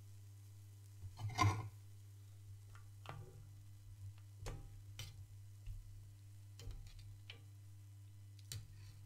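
Long metal spoon clinking against a small metal cup as it stirs hot vanilla pudding: a string of light ticks at uneven intervals, with one louder clack about a second and a half in, over a steady low hum.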